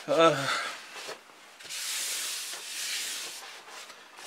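Coarse sandpaper rubbed in long strokes over the painted fuselage of a model plane, starting about a second and a half in, roughening the surface so the epoxy will grip.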